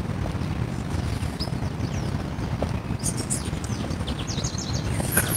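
Quick light footfalls of sneakers landing on a thin mat over paving, under a steady low rumble. Birds chirp a few times, mostly in the second half.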